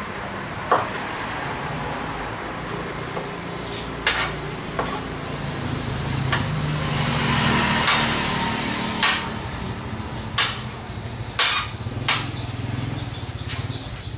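Kitchen knife knocking on a plastic cutting board as chilies and garlic are chopped and scraped together: about eight sharp knocks at uneven intervals over a steady low background hum.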